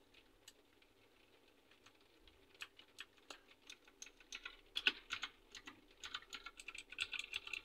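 Keys on a Ziyou Lang T60 mini mechanical keyboard with clicky blue switches being pressed one after another. The presses are sparse at first and come faster toward the end. The keys are being tested for spring noise, a rattle like a bead loose inside that several of the switches have.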